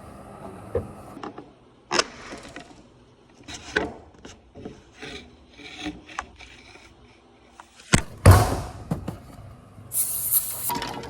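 Scraping and rubbing against a garage door, with scattered light knocks, as its emergency release is worked from outside. A sharp clunk comes about eight seconds in, followed by louder rattling and scraping near the end.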